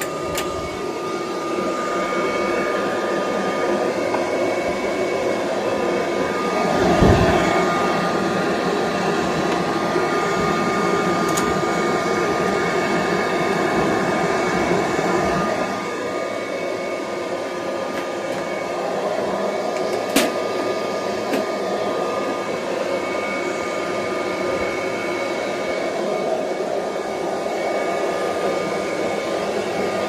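Kirby Heritage II Legend upright vacuum running steadily with a constant whine, vacuuming felt floor padding. A heavy thump about seven seconds in, and a few sharp clicks.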